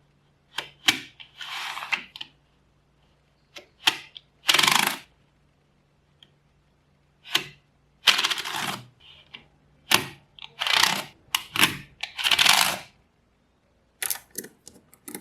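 Small magnetic balls clicking and snapping together, with several longer clattering runs of up to about a second between sharp single clicks.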